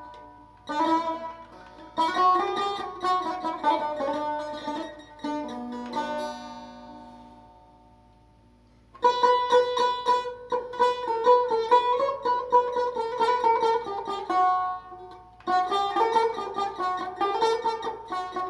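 Persian tar played in fast plucked phrases with rapid repeated picking. About six seconds in, a phrase rings out and fades almost to silence, then the playing starts again near nine seconds.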